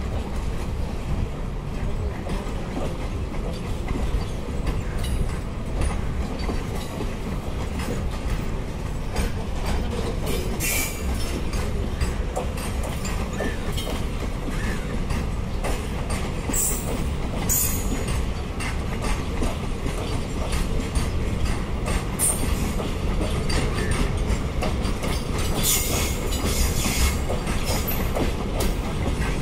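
Container flat wagons of a long freight train rolling past, with a steady rumble and clatter of steel wheels on the rails. Brief high-pitched wheel squeals cut in several times.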